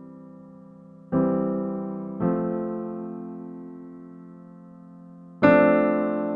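Slow, soft piano background music: sustained chords struck a few seconds apart, each left to ring and fade.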